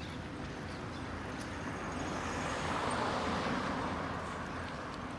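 A vehicle passing by, its noise swelling to its loudest about three seconds in and then fading.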